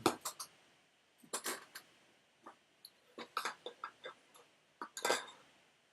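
Irregular light clicks and clatter of small metal tools and parts being handled and set down on a workbench, with no steady sound between them.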